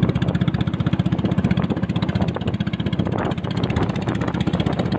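Engine of a small wooden fishing boat running steadily under way, a fast, even chugging.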